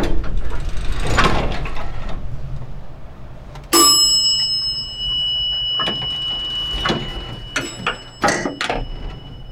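An elevator bell dings once about four seconds in and rings on for several seconds, amid short metallic scrapes and rattles over a steady low rumble, part of a haunted-elevator sound effect.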